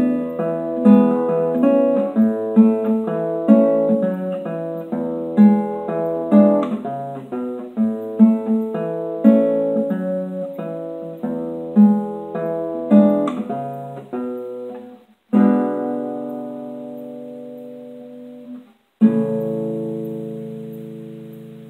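Solo classical guitar playing a rhythmic passage of an Argentine gato dance, with plucked notes and chords over a bass line. About fifteen seconds in, the playing gives way to a held chord that rings and fades, and a final chord a few seconds later rings out to the end.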